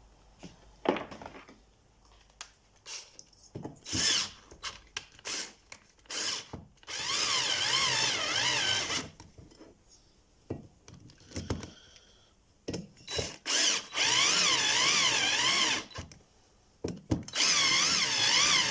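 Power drill driving in the cylinder screws of a Stihl MS 180 chainsaw: a few short blips of the trigger, then three runs of about two seconds each with a wavering motor whine.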